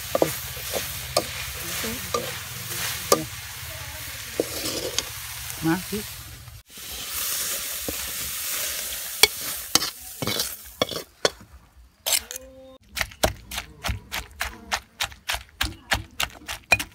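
Chillies, shallots and solanum berries sizzling in a wok while a metal spatula stirs and scrapes them. Near the end a stone pestle pounds them in a granite mortar, about two strikes a second.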